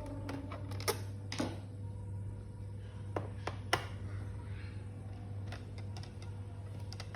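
Scattered small clicks and taps from hand work on a laptop being taken apart, a few sharper ones standing out, over a steady low hum.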